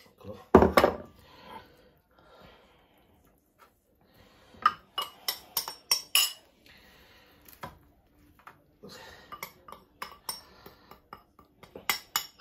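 Hands rubbing dry masala onto whole fish in a dark metal roasting tray, with scattered clinks and knocks of the tray against the worktop. The loudest is a thump about half a second in; there is a quick run of clinks around five to six seconds and more near the end, with soft rustling between.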